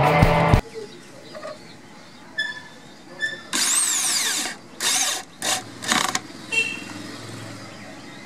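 Handheld power drill run in short bursts: one lasting about a second, its pitch rising then falling away, then three shorter bursts. This fits driving screws while building a wooden coop.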